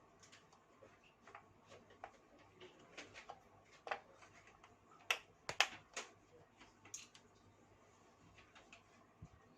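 Scattered light clicks and taps of computer parts being handled, with a few sharper clicks about five to six seconds in.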